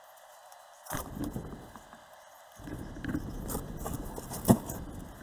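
A backpack and gear rubbing, scraping and knocking against rock as a hiker squeezes through a narrow crevice. The rustling and clicks start about a second in, and there is one sharp knock about four and a half seconds in.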